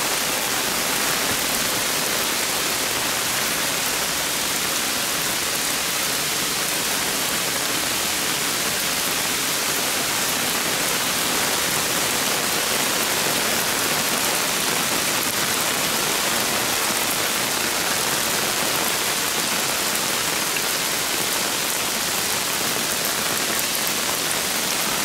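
Steady rain falling, an even hiss with no distinct drops standing out.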